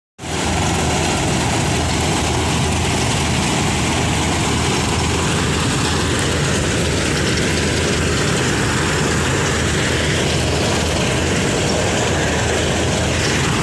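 Surindera 930 combine harvester running steadily while cutting and threshing ripe paddy: engine and machinery as one loud, unbroken noise.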